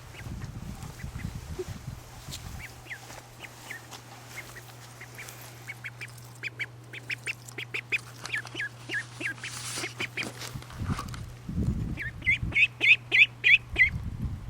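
Three-week-old Cayuga duckling peeping: short, high calls that are scattered at first, then come louder and faster, about four a second, for the last couple of seconds. Low thumps from handling or movement come near the start and again about eleven seconds in.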